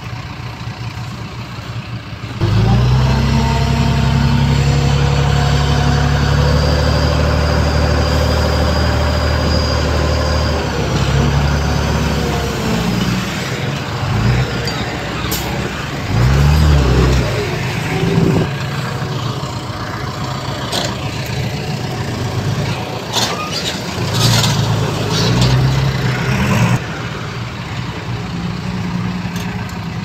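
Heavy diesel earthmoving machinery running: a steady, loud engine comes in suddenly, then changes pitch as it works, with several sharp knocks in the second half.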